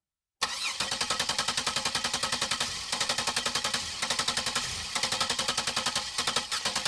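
Car starter solenoid clicking rapidly, about ten clicks a second, in runs broken by short pauses as the key is held in the start position without the engine cranking. This is typical of a weak or flat battery.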